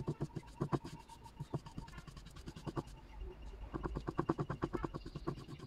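Small paintbrush scrubbing black paint onto a rough wooden board in quick back-and-forth strokes, about five a second. One run of strokes ends just after the start, and another comes past the middle.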